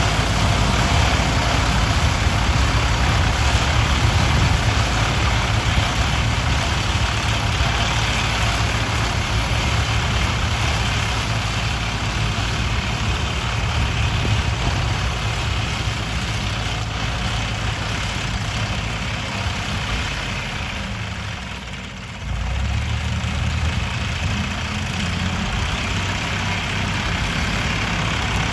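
Tractor engine running steadily as it drives a mounted sugarcane cutter and leaf-stripper through standing cane. About three-quarters of the way through, the sound sags and then comes back abruptly.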